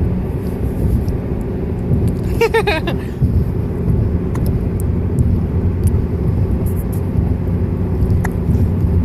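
Steady low rumble of a car's engine and road noise. A brief high-pitched vocal sound comes about two and a half seconds in.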